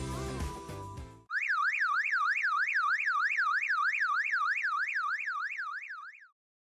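Background music breaks off about a second in and a siren-like alarm sound effect takes over: a fast up-and-down warble, about three sweeps a second, that stops abruptly near the end. It is an edited-in alarm cue marking a mishap, the camera being knocked over.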